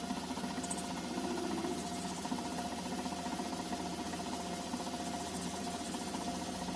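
Small metal lathe running steadily, its motor giving a steady hum with a fast, even rattle from the drive.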